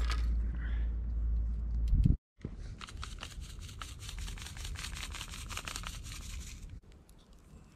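A low wind rumble on the microphone with a few light clicks of the wire grill basket being handled. After a sudden cut, water poured from a plastic bottle splashes and patters onto rock for about four seconds, then stops.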